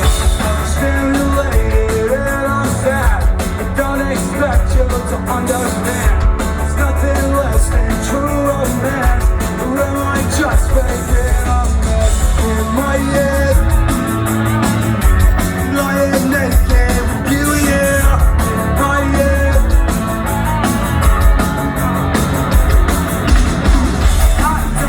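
Live pop-punk rock band playing loudly with heavy bass and drums, with a voice singing over it.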